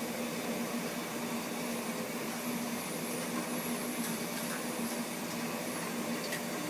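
Gas burner running steadily under a pan of water heating wax, a constant hiss with a low hum, with a couple of faint clicks.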